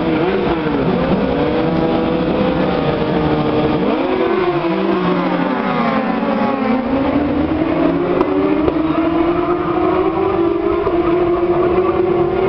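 Superbike engines screaming as racing motorcycles launch from a standing start in waves, their notes revving hard and sweeping up and down. From about halfway a steadier engine note slowly rises in pitch.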